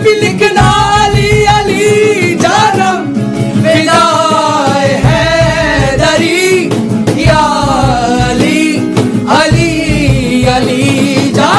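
Devotional song in praise of Ali: a singing voice over instrumental backing.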